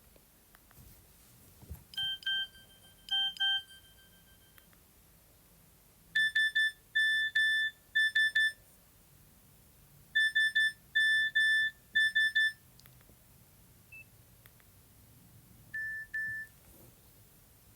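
A Nokia 113 mobile phone's speaker plays short electronic beeping alert tones as they are previewed one after another. First come two brief two-note beeps, then a quicker multi-beep pattern that plays twice, then a single short beep near the end. Faint clicks of the phone's keys fall between them.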